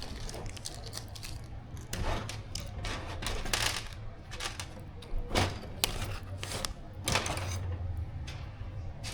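Small screws and plastic kit parts being handled and sorted on a table: irregular light clicks, taps and rattles, with a few brief rustles.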